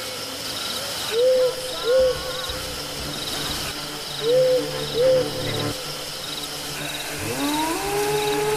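An owl hooting in pairs of short hoots, one pair about every three seconds, over a steady chorus of night insects chirping in a fast, even pulse. About seven seconds in, a low tone rises and then holds.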